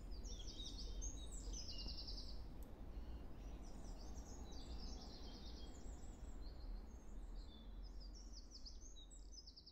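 Small songbirds singing in a winter wood: short high phrases and fast trills repeating over and over, over a low steady rumble.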